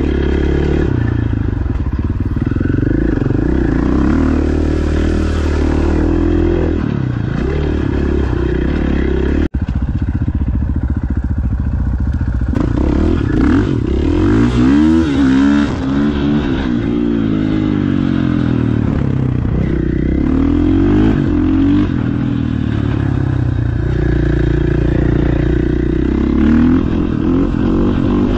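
Enduro motorcycle engine heard from on the bike while riding, its pitch rising and falling again and again as the rider accelerates, changes gear and backs off. The sound breaks off for an instant about nine seconds in.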